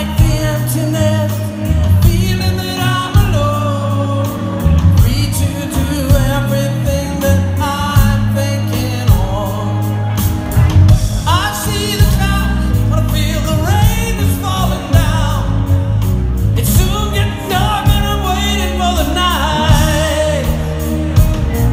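Rock band playing live through a concert PA: a lead vocal sung over acoustic and electric guitars, bass guitar and drums, heard from the audience.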